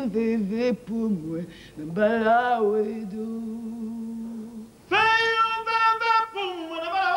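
Singing voice on a theatre stage: short sliding phrases, then a long low held note, then from about five seconds in a higher, strong sustained note with vibrato.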